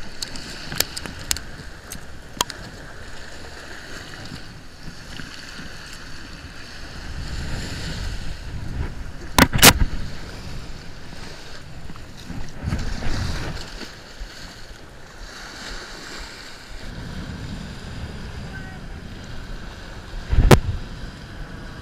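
Small surf breaking and washing up on a sand beach, with a few sharp knocks over it, the loudest about halfway through and one near the end.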